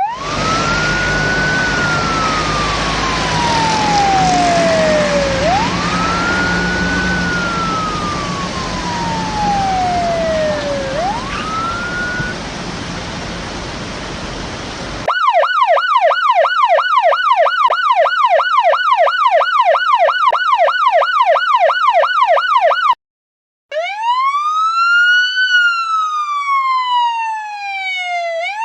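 Police sirens in a row. First a recorded siren wails over traffic noise, each cycle rising quickly and falling slowly over about five seconds. About halfway through it switches to a clean, fast yelp of about three sweeps a second, and after a short break near the end to a clean wail rising and falling about every three seconds.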